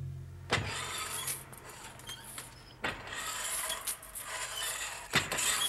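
Cable weight machine in use: three sharp metal clanks about two and a half seconds apart as the bar is pulled and the stack moves, with a steady mechanical whirr of cable and pulleys between them.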